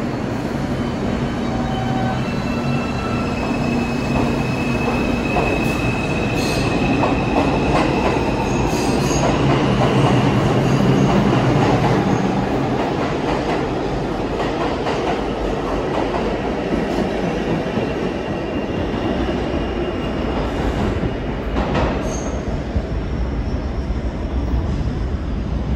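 R142-family New York City subway train running along the track, with a continuous rumble and high wheel squeal. The squeal is clearest in the first few seconds, and the rumble swells to its loudest about halfway through.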